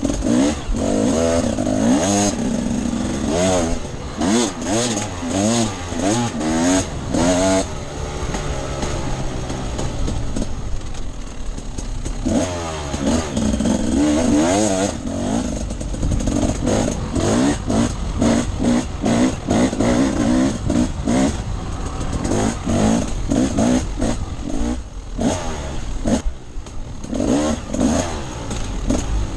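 Off-road dirt bike engine being ridden, revving up and down again and again as the throttle is worked, with frequent short knocks and rattles.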